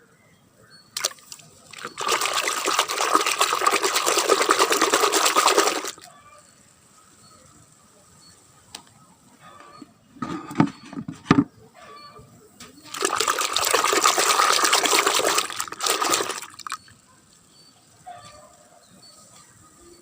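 Water running or pouring in two spells of about four seconds each, with a few knocks in between.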